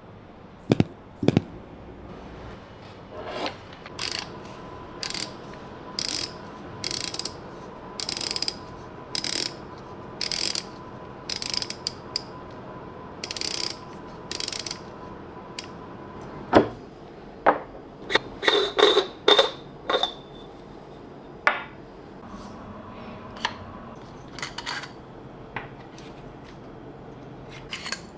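Hand coffee grinder being worked: a couple of sharp clicks, then a rhythmic rasping stroke about once a second for some ten seconds, then a cluster of metallic clinks and knocks from its parts.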